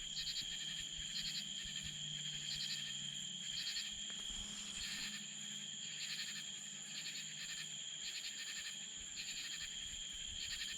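Nighttime chorus of insects and frogs: a steady high-pitched buzz with short pulsed chirps repeating about once a second, over a faint low hum that fades about eight seconds in.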